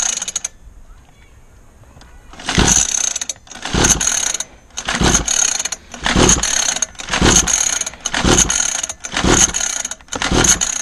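A 49cc two-stroke mini dirt bike engine is pull-started over and over, about one pull a second, beginning some two and a half seconds in. Each pull gives a short rasping crank of the recoil starter, and the engine never catches. The owner puts the no-start down to a worn-out spark plug.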